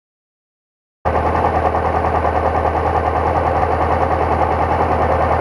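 Honda CB500X's parallel-twin engine idling close to the microphone, a steady rapid pulsing that cuts in abruptly about a second in.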